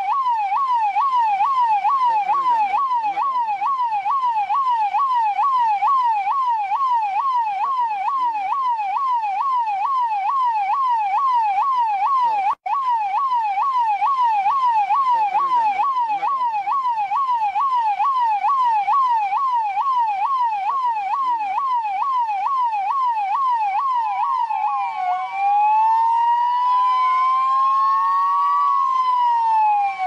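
Indian police siren sounding a fast yelp, its pitch sweeping up and down about twice a second, with a brief dropout about halfway through. Near the end it switches to a slower wail, two tones rising and falling over a couple of seconds each.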